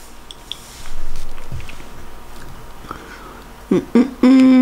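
Soft rustling and handling noises, loudest about a second in, then a woman's short vocal sounds and a drawn-out, level hesitation sound ('euh') near the end.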